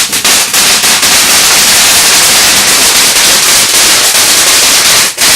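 A firework going off in a dense, unbroken crackle of rapid bangs, pretty loud, with a brief dip just before the end.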